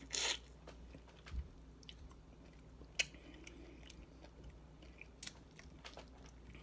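A person biting into and chewing fruit, with a wet, noisy bite at the very start and a few sharp clicks from the mouth along the way.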